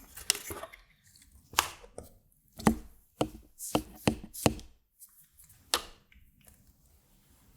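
A circuit board fitted with toggle switches being handled on a workbench, giving about ten irregular sharp clicks and knocks.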